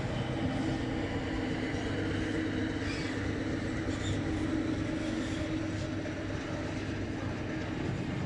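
Freight train of empty flat wagons behind a diesel locomotive rolling past on the rails: a steady rumble with a low hum.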